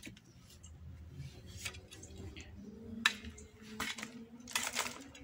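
Metal hoe striking and scraping stony garden soil: a few irregular sharp clinks and scrapes, the loudest about three seconds in.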